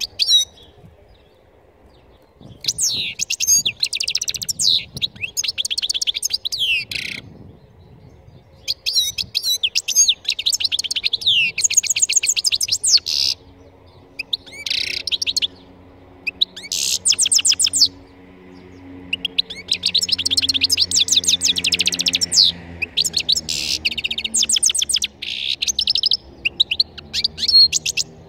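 European goldfinch singing: fast, high-pitched twittering phrases of a few seconds each, broken by short pauses, about six phrases in all.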